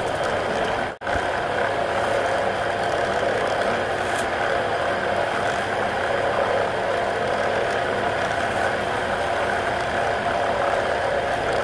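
Belt-driven wood lathe running at a steady speed with the bowl spinning on it. The sound cuts out for an instant about a second in.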